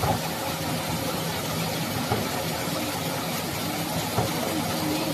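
Automatic fruit-caviar production machine running steadily with a mechanical hum, with a few brief knocks about two seconds apart.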